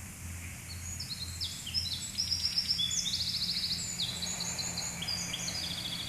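A songbird singing a rapid, busy song of high trills and short notes, starting about a second in, over a steady low hum.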